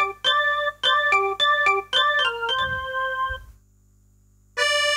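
Korg Kross 2 keyboard playing a piano-like preset: rhythmic repeated chords, then a held chord that dies away. After a second of silence, a brighter sustained reedy preset comes in near the end.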